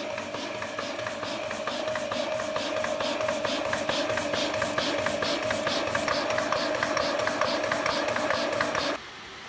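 Portable high-pressure air compressor running: a fast, even piston beat of about five or six strokes a second over a steady hum and hiss. It is pumping the airgun's reservoir up to 300 bar, and it cuts off sharply near the end.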